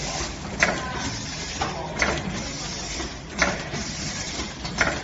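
Automatic four-side-sealing pouch packing machine running with a steady mechanical noise and a sharp clack repeating about every one and a half seconds.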